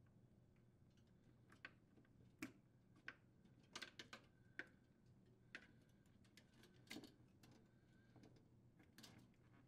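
Faint, irregular clicks and light rattles of plastic refrigerator wire harness connectors and their wires being handled and pushed together.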